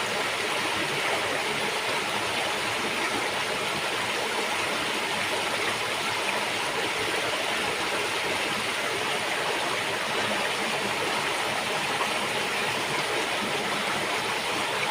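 River water flowing over rocks: a steady, even rushing with a little gurgling.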